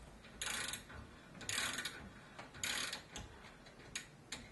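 Hand ratchet clicking in short rasping spells about a second apart, with a few single clicks near the end, as it turns a thread-cleaning tool over a chromed bolt to clear excess chrome from the threads.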